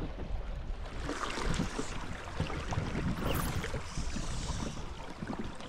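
Running river water with a low rumble of wind on the microphone and small splashes and ticks.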